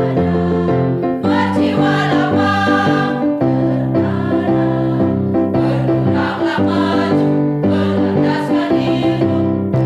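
Women's choir singing a march in several parts, over held low keyboard notes that change about once a second.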